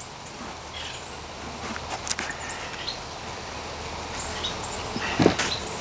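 Hands digging and rummaging through loose potting soil to pull out sweet potatoes: scattered rustling and crumbling, with a couple of louder knocks about two and five seconds in.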